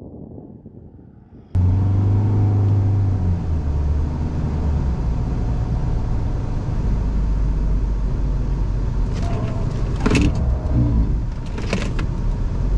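Pickup truck engine running hard under acceleration, cutting in abruptly about a second and a half in. Its low note steps down in pitch twice. Two short bursts of hissing noise come about two seconds apart near the end.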